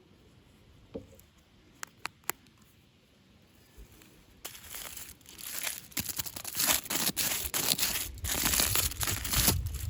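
A few light clicks, then from about halfway a dense crinkling and tearing of packaging being unwrapped by hand.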